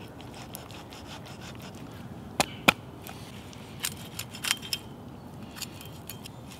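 Meat cleaver chopping and cracking through a raw chicken's backbone against a wooden board, cutting the backbone out to spatchcock the bird. There are two sharp cracks about two and a half seconds in, then a quick run of smaller cracks about a second later.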